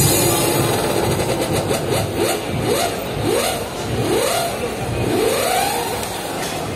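An engine revving in a string of short rising sweeps, one after another, over a steady background din.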